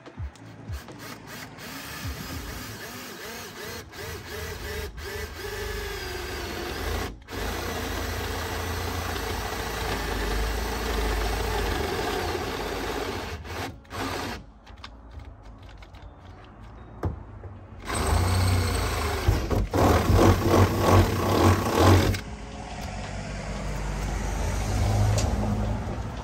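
Cordless drill boring a pilot hole through the sheet-steel side panel of a van, running in several stretches, with a loud, uneven spell about three quarters of the way through.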